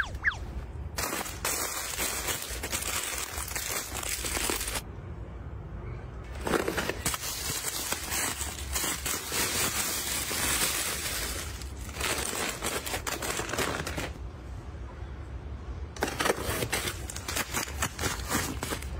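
Close-up handling sounds of restocking a refrigerator: aluminium soda cans knocking against a clear plastic can organizer, and containers being set on the fridge's shelves. It comes in several bursts of rustling and clicking with short quieter gaps between them.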